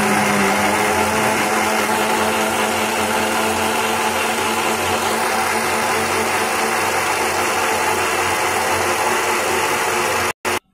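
Hitech bullet blender's motor running at full speed, blending pomegranate seeds with milk and water in its filter juicer jar: a loud, steady whine that cuts out about ten seconds in, followed by one short burst before it stops.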